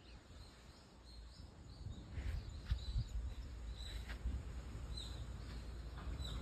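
Faint outdoor ambience: a bird giving short, high chirps about once a second over a low steady rumble.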